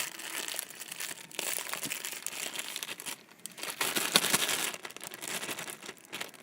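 Homemade slime being squished and stretched in the hands, a crackling sound of many small pops, loudest about four seconds in.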